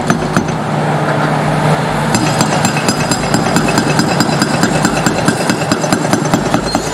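Hydraulic breaker on a Cat tracked excavator hammering concrete in rapid blows, over the excavator's running diesel engine.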